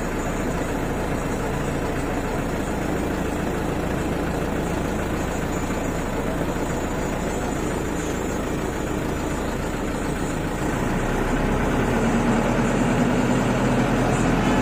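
Vehicle engines idling and crawling in dense street traffic, heard from inside a van's cab. About eleven seconds in, a heavier diesel engine drone grows louder as a government bus draws up alongside.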